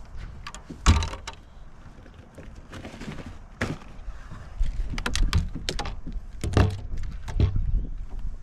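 Knocks, clunks and clicks of a bass boat's deck storage hatch being opened and shut and gear handled inside it, with a loud knock about a second in and a busy run of clicks and knocks in the second half, over a low wind rumble.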